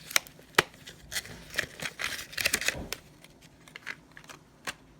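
Small long-nose pliers being handled: several sharp metal clicks with some rustling in between, the clicks scattered irregularly.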